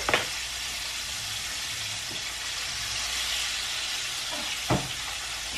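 Butter sizzling steadily in a hot frying pan. Two sharp clicks sound over it, one at the start and one near the end.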